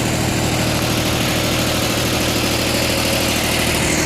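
Mitsubishi MTE2000 compact tractor's diesel engine running steadily, its note shifting slightly near the end.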